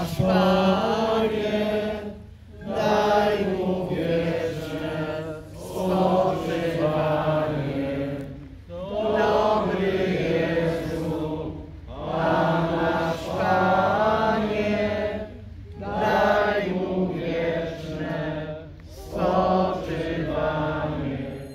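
A crowd of mourners singing a Polish church hymn together, unaccompanied, in phrases of two to three seconds with brief breaks for breath between them.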